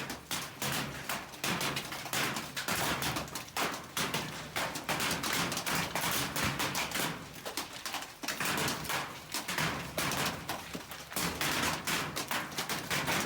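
Hailstones pelting hard surfaces in a dense, continuous clatter of sharp impacts during a hailstorm.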